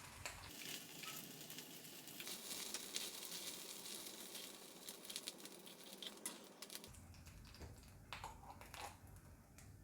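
Faint sizzling of paneer cubes shallow-frying in oil, with a few light clicks.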